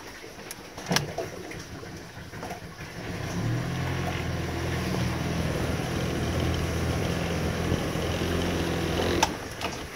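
Boat engine running at a steady pitch, coming in about three and a half seconds in and stopping shortly before the end. A sharp click about a second in and another just as the engine sound stops.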